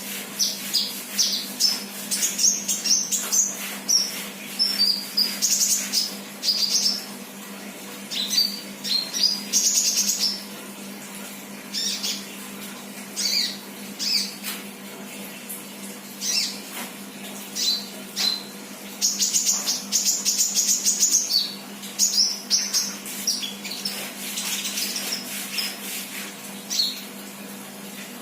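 Sunbird singing in bursts of high, rapid chirps and short buzzy trills, with brief pauses between phrases, over a steady low hum.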